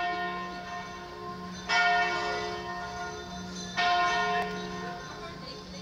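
A bell tolling slowly, struck about every two seconds, each stroke ringing on and fading before the next.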